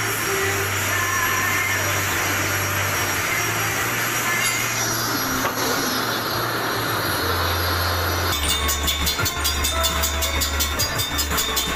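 Metal lathe running with a steady hum while turning a water-pump impeller. About eight seconds in, a fast, even clatter begins.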